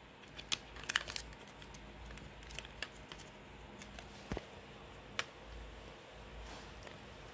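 Scattered sharp clicks and light taps of hard plastic as a plastic bracket plate is handled and fitted onto a replacement UPS battery's case, with faint handling rustle between them. Several clicks come close together in the first second and a half, then single ones a few seconds apart.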